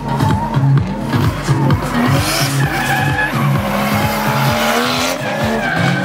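Nissan Silvia S14 drift car sliding sideways, its engine revving up and down while the rear tyres screech and smoke, the tyre hiss swelling about two seconds in and again near five seconds.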